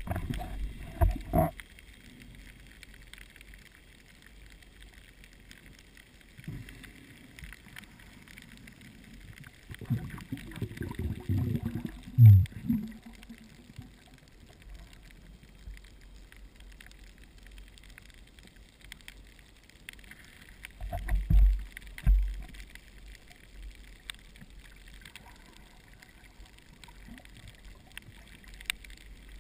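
Underwater ambience: a faint steady water hiss with three louder bursts of low gurgling rumble, about ten seconds apart, the middle one the loudest.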